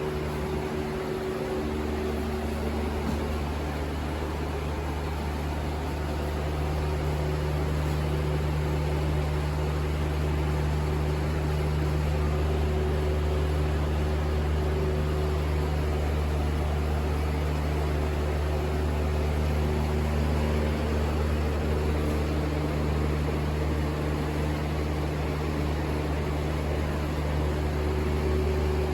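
Steady machine hum: a continuous low drone with a few fixed tones and an even hiss over it, unchanging throughout.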